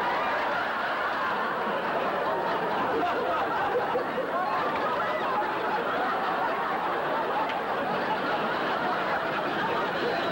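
Studio audience laughing: one long, steady laugh from many people together.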